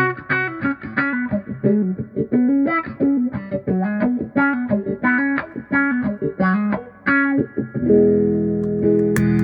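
Electric guitar played through a Vox 846 hand-wired wah pedal: a quick single-note riff, about five notes a second, then a held chord about eight seconds in. A sharp click near the end.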